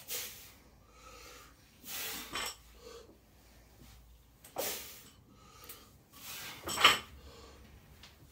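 Loaded barbell set down between deadlift reps, the weight plates clinking and knocking on each touchdown, about every two seconds, the loudest near the end.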